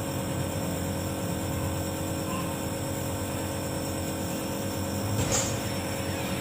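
Nebulizer compressor running with a steady mechanical hum, with one short louder noise about five seconds in.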